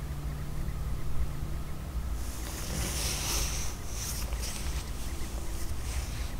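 Wind buffeting the microphone, a steady low rumble, joined about two seconds in by a high hissing rush.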